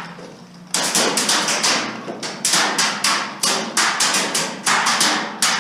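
A player's running footsteps, about three strides a second, starting under a second in.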